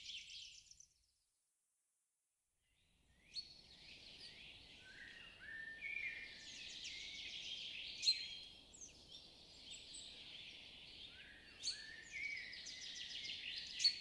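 Faint songbird chorus of rapid chirps and trills. It cuts to dead silence for about two seconds near the start, then resumes, with a few sharp ticks mixed in.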